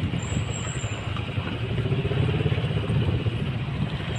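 Motorcycle engines running under way, heard from one bike riding in a group of motorcycles: a steady, low engine rumble.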